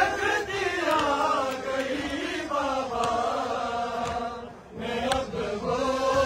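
A crowd of men chanting a noha, a Shia mourning lament, in unison with a lead reciter singing into a microphone. The chant breaks off briefly about four and a half seconds in, then resumes.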